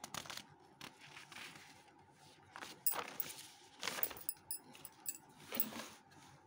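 Paper rustling and handling noises as a written sheet on a clipboard is turned over to a blank page, in several short scattered rustles, with a few light ticks a little after the middle.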